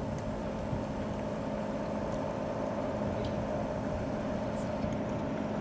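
Tugboat engine running steadily, a constant droning hum as the boat churns the water.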